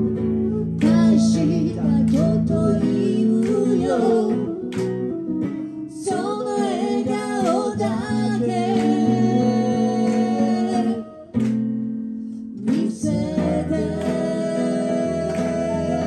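Live band music: a woman singing a melody over a strummed semi-acoustic guitar, with a flute in the ensemble. There is a short break in the music about eleven seconds in.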